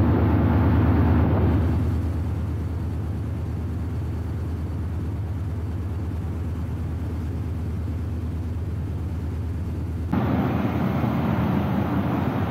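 Steady low rumble of wind and road noise while riding a bicycle, with no distinct events. It drops slightly about two seconds in and jumps back up abruptly about ten seconds in.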